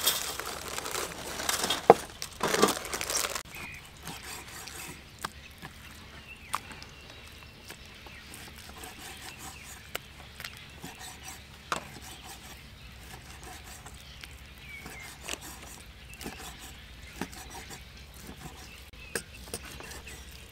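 A cleaver slicing raw beef on a wooden chopping block, its blade knocking on the wood in irregular sharp taps a second or two apart. For the first few seconds plastic instant-noodle packets are crinkled loudly as they are torn open.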